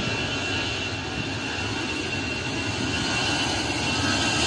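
Jet aircraft engines: a steady rushing noise that grows louder toward the end.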